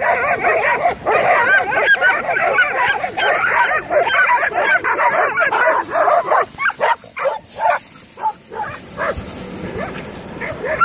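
A group of dogs barking and yelping at each other at once, in a dense overlapping chorus. About two-thirds of the way through it thins to separate barks, eases off briefly, and picks up again near the end.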